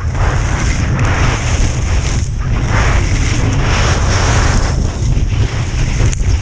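Wind buffeting a skier's camera microphone at speed, with skis scraping over firm, hard-packed snow. The scraping swells and fades about once a second.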